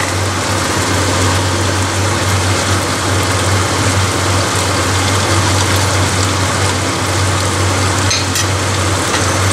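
Beef, potatoes and vegetables frying in a large pan: a steady sizzle, with a low hum running underneath.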